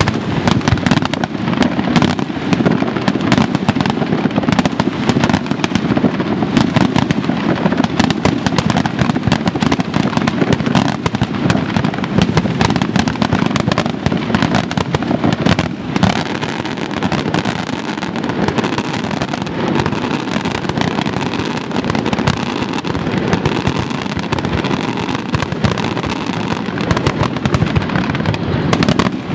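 Aerial fireworks shells bursting in a dense, unbroken barrage, many reports a second blending into a continuous loud rumble and crackle.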